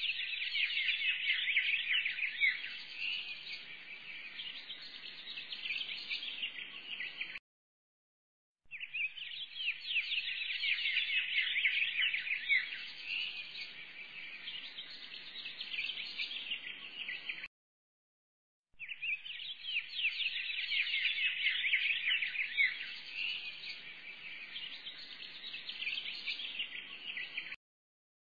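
Small birds chirping and twittering in quick, dense trills, in stretches of about eight or nine seconds that each cut off into a second of dead silence and then start again, like a short bird-song track played on a loop.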